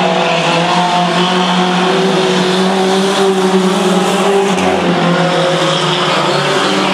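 Engines of several racing mini trucks running together on the dirt oval: a loud, steady engine sound with a few overlapping pitches that hold fairly level.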